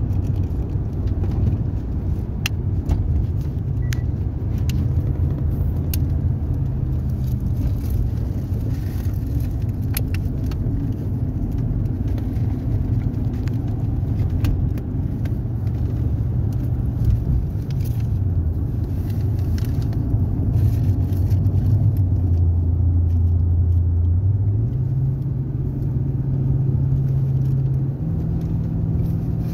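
Car engine and road noise inside the cabin while driving. The engine note holds steady for a long stretch, drops lower about three-quarters of the way through, then steps up twice near the end. Faint scattered clicks sound over it.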